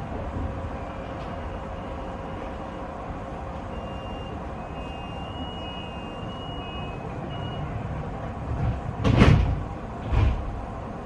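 Inside a tram: the steady low rumble of the running car, with faint thin high tones in the middle. Near the end come two short, loud bursts of noise, a second apart.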